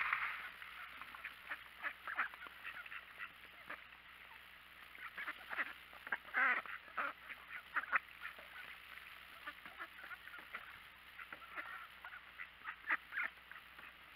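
A flock of mallard and white domestic ducks quacking and chattering in short, irregular calls, with a louder flurry of quacks about halfway through.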